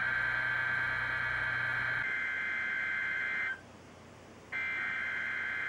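NOAA Weather Radio SAME header data bursts coming through a weather radio receiver: a harsh, steady digital buzz that breaks off for about a second midway and then starts again. It is the coded header that opens the Required Weekly Test.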